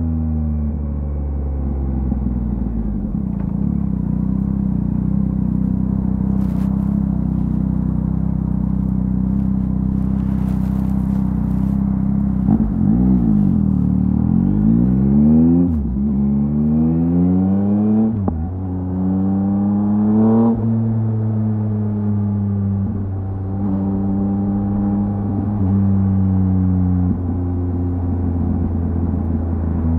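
2023 Yamaha MT-09's inline three-cylinder engine through a LeoVince LV Race full exhaust, running at a steady engine speed. About halfway the revs rise and fall quickly a few times, then the note climbs three times, each climb cut off by a sudden drop as it shifts up. It then settles back to a steady cruise.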